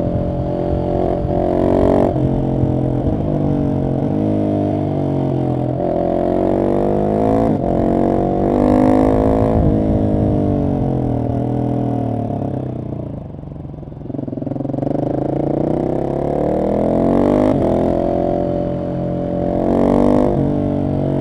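Husqvarna 701 SM's single-cylinder four-stroke engine, breathing through a de-catted Arrow exhaust, running hard under load. Its note climbs and drops again and again as it pulls through the gears, falls away about two thirds through as the bike slows, then climbs again.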